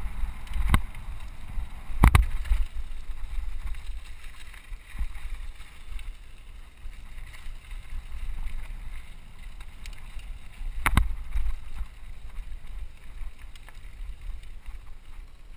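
Mountain bike ridden fast over a gravel and rock trail, heard from a helmet-mounted camera: a steady rumble of wind on the microphone and rough ground, with sharp knocks of the bike clattering over rocks near the start, about two seconds in, and about eleven seconds in.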